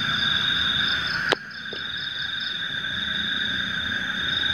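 Night chorus of crickets and frogs: a steady high trill with short breaks, a faster pulsing buzz above it and a dense hum of calls beneath. A single sharp click comes about a second in.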